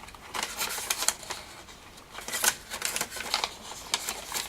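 Paper pages and tags of a handmade junk journal being turned and handled: an uneven run of rustles and light flaps, with a few sharper page snaps.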